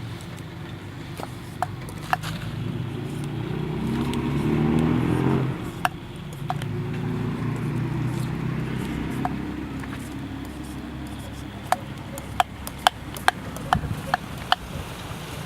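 A motor vehicle engine running nearby, swelling and rising in pitch about four to five seconds in, then dropping away. Near the end come a quick series of sharp clicks or knocks.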